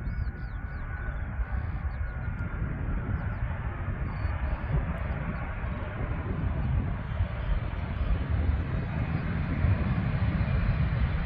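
Twin-engine widebody jet airliner on its takeoff roll, its engines at high power, the rumble slowly growing louder as it approaches. Birds chirp faintly during the first few seconds.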